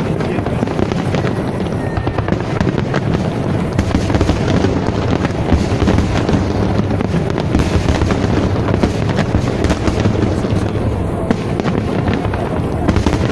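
Fireworks display going off in a dense, continuous barrage of bangs and crackles with no pause.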